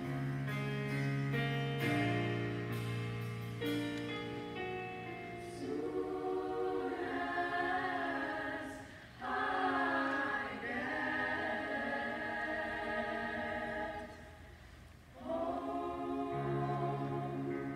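High school gospel choir singing with keyboard accompaniment, held low notes under the voices at first. The sound dips briefly about nine seconds in and thins out around fourteen seconds before the full choir comes back in.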